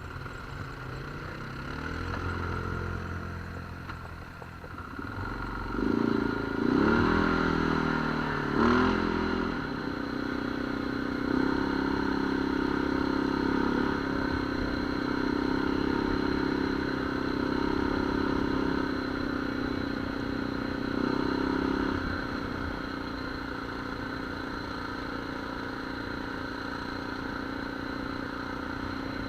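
ATV engine running under way: about six seconds in it revs up and down several times, then holds a steady, louder note until about twenty-two seconds, when it eases back to a lower, quieter run.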